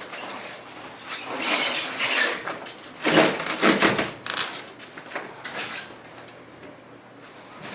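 Rustling, scraping and knocking of packing work as a refrigerator is wrapped for moving, in a few irregular noisy bursts, loudest about three to four seconds in.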